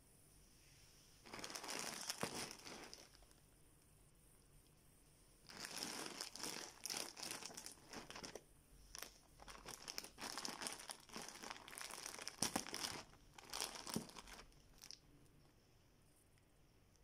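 Plastic courier mailer bag crinkling as it is handled: a short bout of crinkling about a second in, then a longer run of repeated crinkles from about five seconds to near the end.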